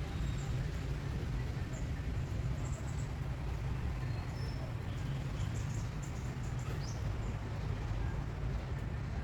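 Steady low rumble of outdoor background noise, with a few faint, short high-pitched chirps scattered through it.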